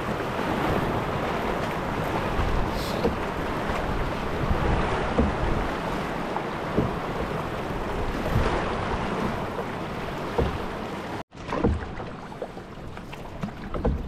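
Wind rushing over the microphone along with water noise around a canoe. About eleven seconds in it cuts off abruptly to quieter water and wind with a few scattered light knocks.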